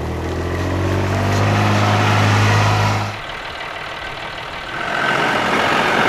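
Kubota utility vehicle's engine running close by with a steady low drone, which cuts off abruptly about three seconds in. A quieter, steady mechanical noise follows and grows louder near the end.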